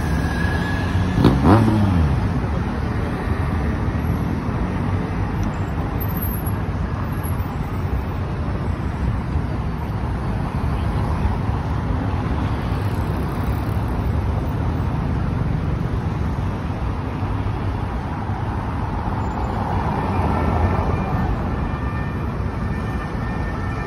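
Steady road traffic of cars circling a roundabout. A motorbike passes close about a second and a half in, its engine note dropping as it goes by. Another vehicle swells past near the end.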